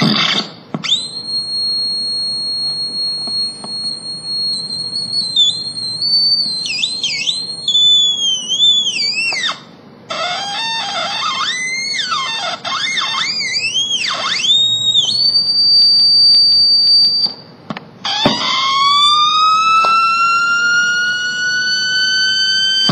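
Circuit-bent toy electronic drum kit putting out glitchy electronic tones. A steady high whistle gives way to warbling swoops and dips in pitch, broken by two short gaps, and near the end a tone slides upward and levels off.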